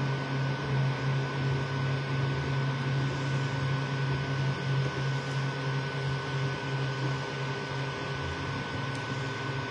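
Creality Ender 3 V2 3D printer running a print: its stepper motors hum low, swelling and fading as the print head and gantry change moves, over the steady whir of its cooling fans with a thin high tone.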